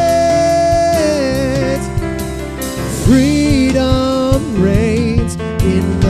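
Live gospel-style worship song from a church band, with a singer twice holding a long, wavering sung note over the steady accompaniment.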